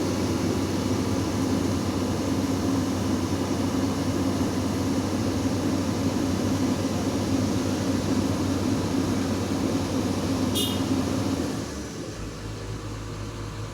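Excavator's diesel engine running steadily under load, then dropping to a quieter, lower idle near the end, with a brief high metallic squeak just before the drop.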